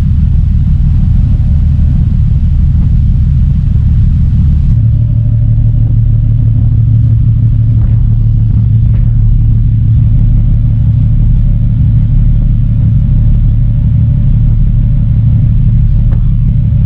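Loud, steady low rumble on the open deck of a moving passenger ferry: wind buffeting the microphone over the ship's engine hum, which becomes clearer about five seconds in.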